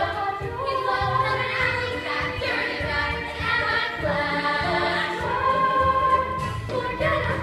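Several voices singing together with musical accompaniment, a stage musical number.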